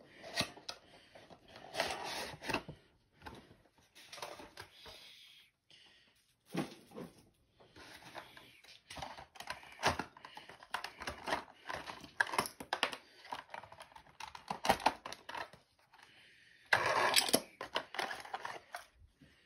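Packaging of an HO scale model ore car being opened by hand: irregular clicks, taps and rustles of cardboard and plastic, with a louder stretch of rustling near the end.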